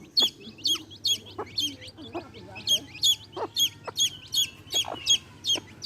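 Baby chicks peeping steadily in short, high, falling chirps about three a second, with a brief gap near two seconds in. A hen clucks a few times low underneath.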